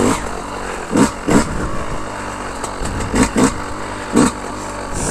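Yamaha YZ125 two-stroke dirt bike engine running at low speed, with several short throttle blips that rise and fall in pitch.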